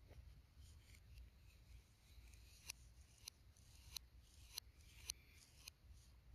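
Faint sound of a palette knife spreading and scraping thick acrylic paint, with soft wet smears and light taps of the blade against the palette. The taps come roughly every half second or so from a little past halfway through.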